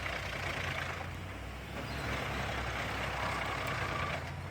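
Drum wood chipper running: a steady low engine hum under a rushing, grinding noise of material being chipped. The noise drops away about a second in and comes back half a second later.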